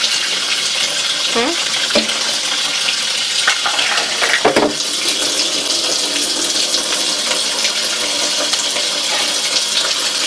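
Tap water running steadily into a stainless steel sink as a gutted chicken carcass is rinsed and handled under the stream. A few brief knocks and splashes come between about one and a half and five seconds in.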